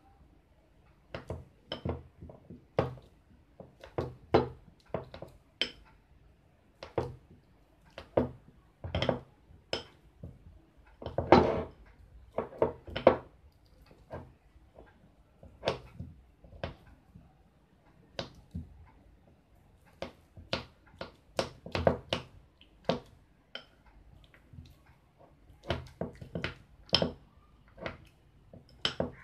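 Spoon knocking and scraping against a bowl while mashing peeled bananas: irregular taps and clinks, one or two a second, with a longer, louder stroke about eleven seconds in.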